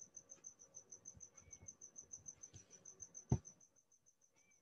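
A cricket chirping steadily and faintly in the background: an even, rapid train of short high chirps, several a second. One sharp mouse click about three seconds in.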